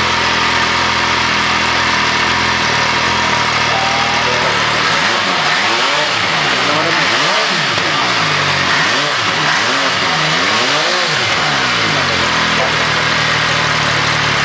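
MV Agusta Brutale 800 Dragster's three-cylinder engine idling, then revved with about five throttle blips, each rising and falling in pitch, before settling back to idle near the end.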